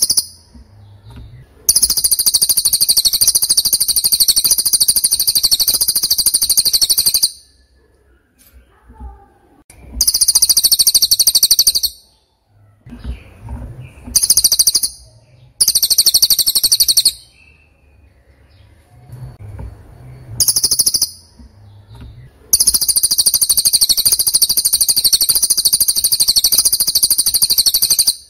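A bird trilling: loud, high-pitched, rapid trills repeated in bursts, from under a second to about five seconds long, with short pauses between.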